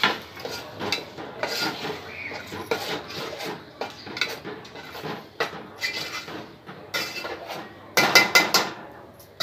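A spoon stirring spice masala in a cooking pot, scraping and knocking irregularly against the pot, with a quick run of louder clanks about eight seconds in.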